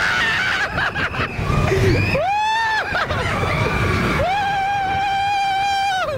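Riders on a mine-train roller coaster let out two long, high screams, a short one about two seconds in and a longer, steadier one from about four seconds. Underneath is the rumble of the train running on the track.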